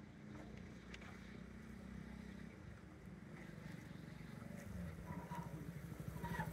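A faint engine running at a distance, a low hum that turns pulsing and grows a little louder over the last couple of seconds.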